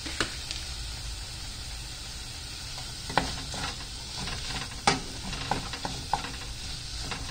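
Wooden spatula stirring diced zucchini in a nonstick pan, with a handful of short taps and scrapes against the pan, the clearest about three and five seconds in, over a soft steady sizzle from the hot pan.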